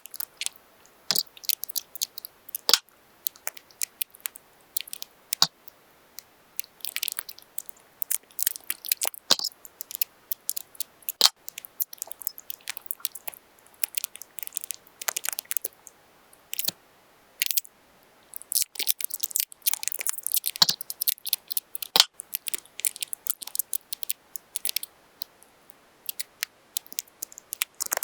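Paper being handled and crinkled by hand: irregular short crackly rustles and sharp clicks with brief pauses between them.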